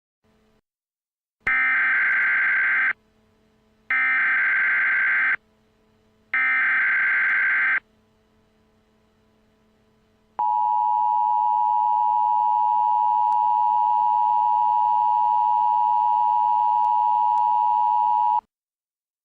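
Emergency Alert System tones: three bursts of SAME header data, each a rapid digital warble about a second and a half long and a second apart. Then the steady two-tone EAS attention signal is held for about eight seconds before cutting off.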